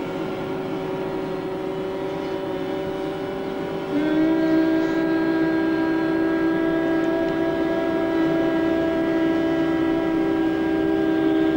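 A group of people humming in bhramari pranayama: long, steady hums held at a few slightly different pitches, with a louder hum joining about four seconds in.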